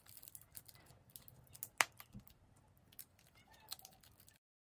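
Thin plastic packet crinkling and crackling as soft clay is squeezed out of it, with irregular small clicks, the sharpest about two seconds in. The sound cuts off abruptly near the end.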